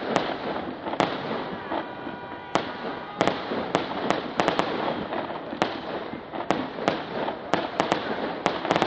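Fireworks display: aerial shells bursting in a rapid, irregular string of sharp bangs over a continuous crackle of sparks.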